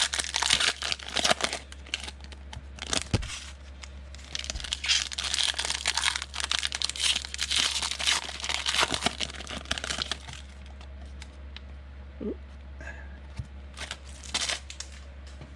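Foil trading-card pack wrapper being torn open and crinkled by hand, in dense crackly bursts for about ten seconds, then a few more crinkles near the end.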